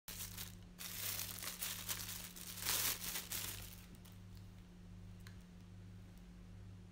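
Rustling and crackling, loudest about three seconds in, dying away after about four seconds to a few faint ticks. A low steady hum runs underneath.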